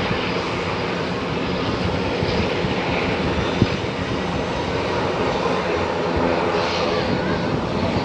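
Airbus C295M's twin Pratt & Whitney PW127G turboprop engines running, a steady propeller drone with several held tones.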